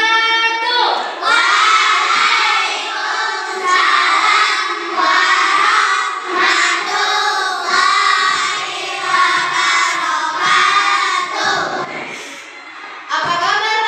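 A group of young children singing a song together, with a short pause near the end before they start again.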